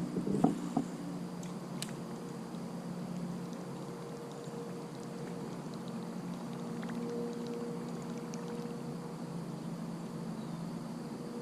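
Creek water trickling and lapping around a small plastic kayak, with a few light knocks in the first two seconds and a faint steady hum underneath.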